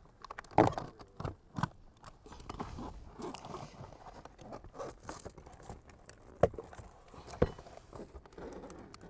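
Utility knife cutting and tearing the asphalt ice-and-water membrane stuck under the roof flashing, a scraping, crinkling sound, with several sharp clicks and knocks as the metal flashing is worked loose.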